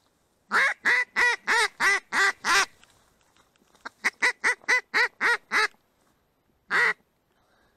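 Loud duck quacking in evenly spaced series: seven quacks in a row, a short pause, eight quicker quacks, then a single quack near the end.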